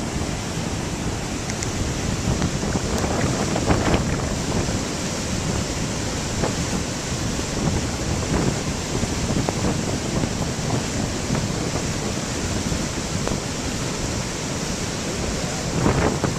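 Flash-flood water rushing down a creek as a steady, dense wash of noise, with a few faint knocks from rocks and boulders carried in the flow.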